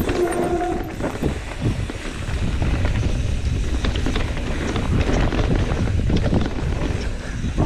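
Mountain bike descending a dry dirt singletrack: wind rushing over the microphone, with the tyres rumbling over dirt and roots and the bike rattling and clattering over bumps.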